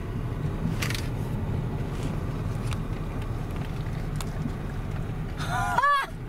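Truck engine and tyres heard from inside the cab while driving over rough prairie ground: a steady low rumble, with a sharp knock about a second in. Near the end there is a short high sound whose pitch rises and falls.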